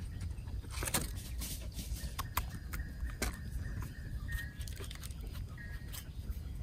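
Rustling and scattered small clicks and snaps of leaf litter and twigs being handled or stepped on while mushrooms are picked, with two short high chirps about four and five and a half seconds in.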